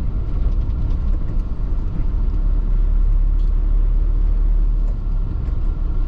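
Car driving along a town street, heard from inside the cabin: a steady low rumble of engine and road noise.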